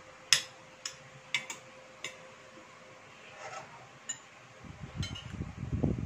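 Metal fork and spoon clinking and scraping against a ceramic plate as food is cut: several sharp clinks in the first two seconds, the loudest right at the start, and one more about four seconds in. Near the end a louder, irregular low rumbling noise sets in.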